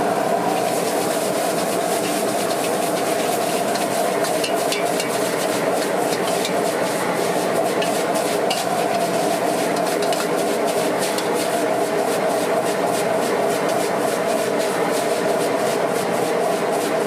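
Wok stir-frying over a high-powered gas burner: a steady roar of flame and sizzling, with a metal spatula repeatedly clinking and scraping against the wok, the strikes coming several times a second from about four seconds in.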